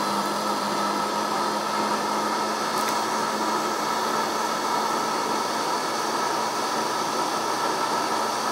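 Electric blender running at one steady speed with a constant whine, puréeing zucchini and cream into a smooth soup.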